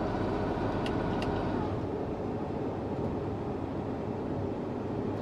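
Tractor engine running steadily with the carrot harvester's machinery, two light clicks about a second in, and the deepest rumble dropping away about two seconds in.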